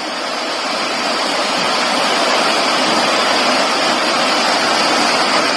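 Steady rushing hiss with no distinct events, growing slightly louder over the first few seconds.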